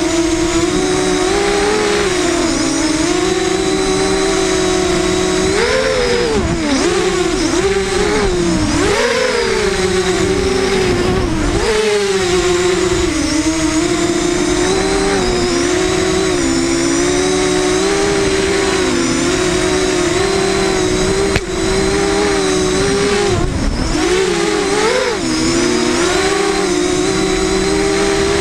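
FPV racing quadcopter's brushless motors and propellers whining, heard from the onboard camera. The pitch rises and falls with the throttle as it swoops and turns.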